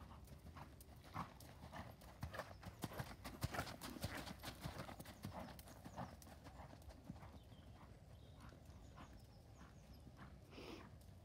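A pony's hoofbeats at canter on a sand arena, a run of soft thuds that grows louder as it passes close in the middle.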